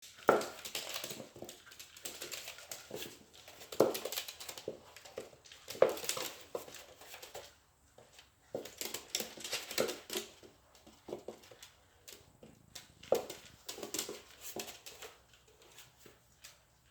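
A chocolate Labrador puppy barking in short, sharp barks, spaced a few seconds apart, at a cat toy that frightens it, with lighter scuffling and clatter in between.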